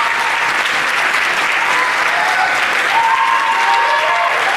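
Audience applauding steadily, with a few voices cheering and whooping over the clapping.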